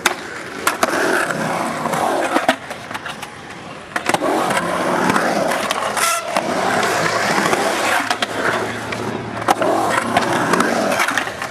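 Skateboard wheels rolling on a concrete bowl, with several sharp clacks of the board and trucks hitting the coping and deck. About six seconds in there is a longer scrape, like a truck grinding along the metal coping.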